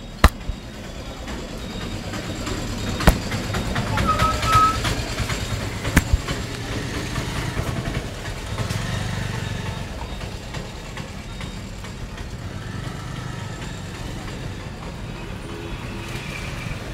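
Steady road traffic rumble, with three sharp clicks about three seconds apart early on and a brief high tone in between.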